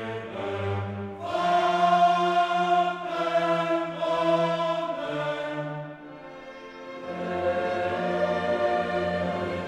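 Choral music with orchestral backing: voices holding long notes that change about once a second, with a brief quieter passage about six seconds in.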